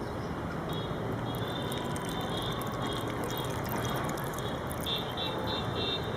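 Water pouring and trickling over cashew nuts in a bowl, over a steady background of traffic noise.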